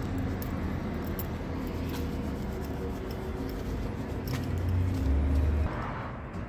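A steady low mechanical hum with scattered light clicks; the hum swells louder for about a second near the end.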